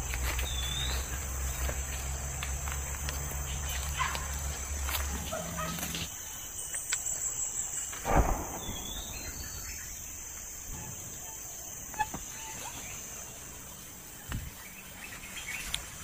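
Forest ambience during a walk with a handheld camera: a steady high insect drone throughout, low wind rumble on the microphone for the first few seconds, and a single dull thump about eight seconds in. Near the start and again mid-way there are a couple of short bird chirps.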